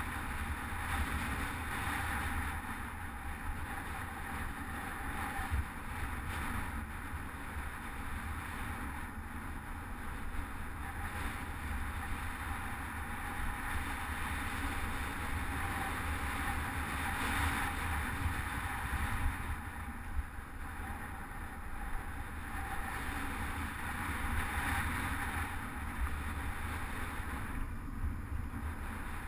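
Steady wind rushing over a handlebar-mounted GoPro HD Hero2's microphone, over a low rumble of tyres and road vibration as the bicycle is ridden along the road.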